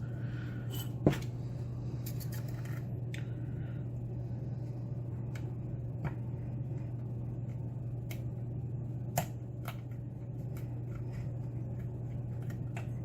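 Faint metallic clicks and scrapes of a lock pick working the pins of a pin-tumbler lock during single-pin picking, scattered and irregular, the sharpest click about a second in and another near nine seconds. A steady low hum runs underneath.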